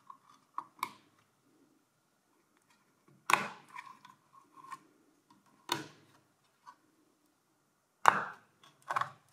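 Plastic retaining clips of motherboard DDR3 memory slots snapping open and memory modules being pulled free: four sharp clicks a couple of seconds apart, with fainter taps in between.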